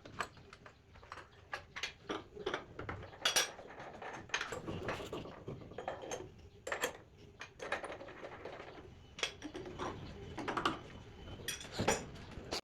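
Irregular light clinks and knocks, several a second at times, like small hard objects being handled and set down, over a low steady hiss.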